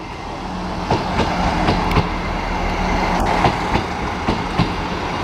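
GWR Class 158 diesel multiple unit passing at close range: steady rushing noise and a low engine drone, with repeated sharp clicks of the wheels over rail joints.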